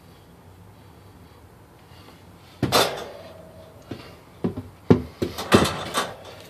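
Knocks and bumps against wooden boards: one loud knock about two and a half seconds in with a short ring after it, then a quick run of sharper knocks and clicks through the rest.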